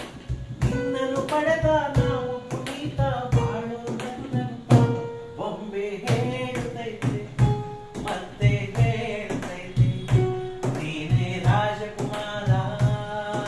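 A man singing a melody, accompanied by hands drumming a steady beat on a wooden desktop and a keyboard app played on a mobile phone.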